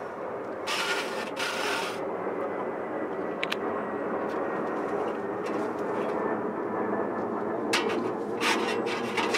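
Flat file in a hand saw jointer run along the tops of a rip saw's teeth, a steady metal-on-metal scraping with sharper, hissier strokes about a second in and again near the end. The file is jointing the teeth down to one level height.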